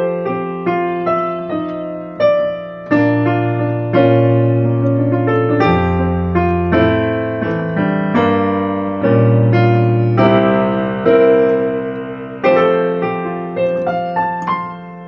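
Digital piano played with both hands: a melody of struck notes over held chords and low bass notes, changing about every half second to a second.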